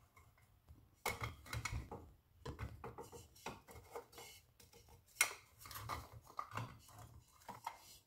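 Scattered clicks, scrapes and light knocks as a glass CRT picture tube is worked loose and slid out of a vintage television chassis, the sharpest knock about five seconds in.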